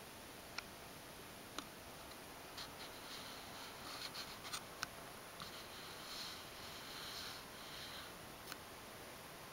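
Faint steady hiss with a few light clicks and spells of soft, scratchy rustling in the middle.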